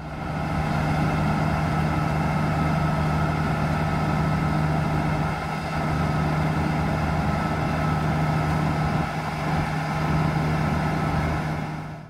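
Heavy farm machinery's diesel engine running steadily at a constant speed, with an even drone and no change in revs.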